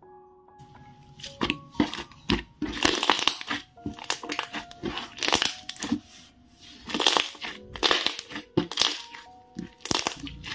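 Thick slime being squished and pressed by hand, giving irregular noisy squelches every half second to a second, over soft background music.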